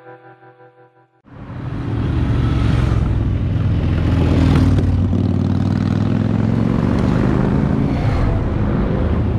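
Background music fades out in the first second. Then, about a second in, motorcycle engines come in loud and stay: cruiser motorcycles riding past close to the roadside, including a Harley-Davidson V-twin.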